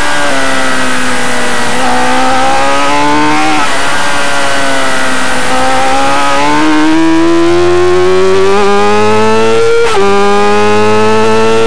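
Racing motorcycle engine heard from a bike-mounted camera, under load through corners. Its pitch dips as the throttle is eased, then climbs steadily under acceleration, with a sudden drop about ten seconds in at a gear change before it climbs again.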